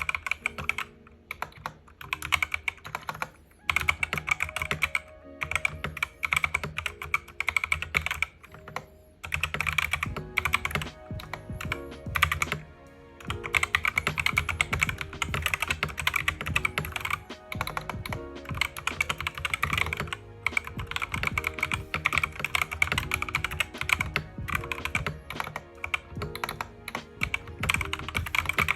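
Fast typing on a Gamakay MK61 mechanical keyboard: a dense clatter of key presses in runs broken by short pauses, over background music.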